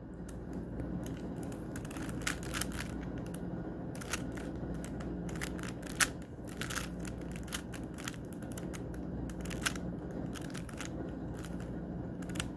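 Rubik's Cube being turned by hand: irregular runs of plastic clicks and clacks as its layers rotate, one louder clack about six seconds in, over a steady low hum.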